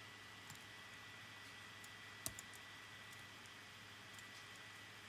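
A few faint keystrokes on a laptop keyboard, the clearest about two seconds in, over a faint steady background hum.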